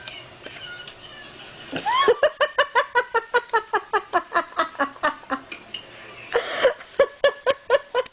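A person laughing hard in a long run of quick bursts, starting about two seconds in, breaking off briefly and starting again near the end.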